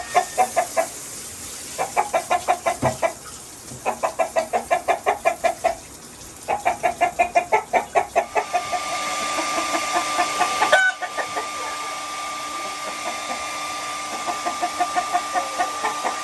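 Chicken clucking in rapid runs of calls, several a second with short pauses between the runs. About halfway through, a steady blower-like hiss with a whine starts and carries on under fainter clucking.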